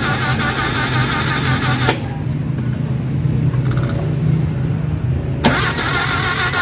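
Mitsubishi 4G63 petrol engine cranking on the starter without catching, during a spark check. The cranking stops with a click about two seconds in and starts again with a click about a second before the end.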